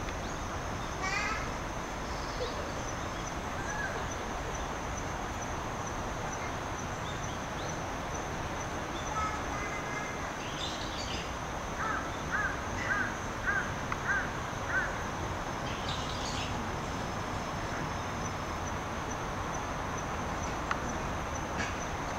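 Outdoor ambience with birds calling: a few brief calls near the start, then a quick run of about six short calls, about two a second, a little past the middle. A faint steady high-pitched tone sits under it.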